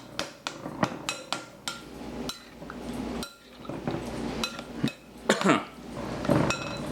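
A spoon repeatedly clinking and knocking against a dish: a run of sharp taps, each with a brief ring. The taps thin out in the middle and then pick up again.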